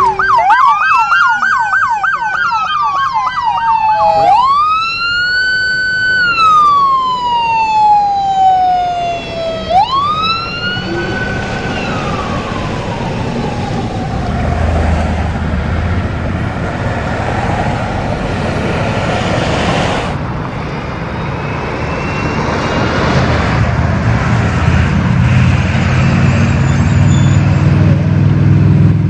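Police car siren: a fast yelp for the first few seconds, then three slow rising-and-falling wail cycles that die away about twelve seconds in. After that, traffic noise and the low rumble of a heavy truck's diesel engine, growing louder near the end.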